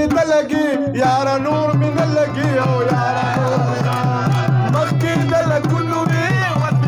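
Live Pashto folk music: a wavering melody, with a tabla beat of quick, even strokes that comes in about a second in.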